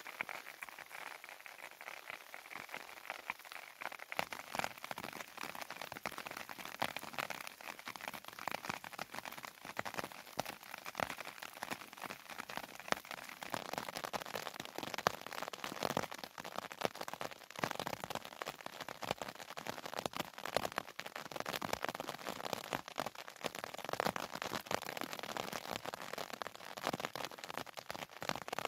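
Steady rain falling, heard as a dense, irregular spatter of many small drop impacts over a constant hiss.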